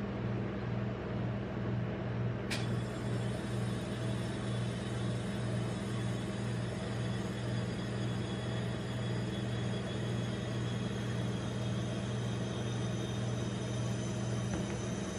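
Steady low hum of a rolled-ice-cream machine's refrigeration compressor chilling the steel cold plate, with a single sharp click about two and a half seconds in.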